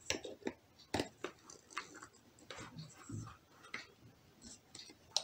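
Irregular light clicks and plastic scraping as an energy-saving light bulb is fitted into a table lamp's bulb holder and the lampshade is handled.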